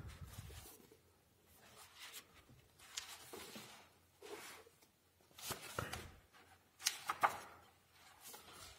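Paper pages of a thick softcover book rustling and flapping as they are leafed through and turned by hand, in a series of short rustles with the sharpest about seven seconds in.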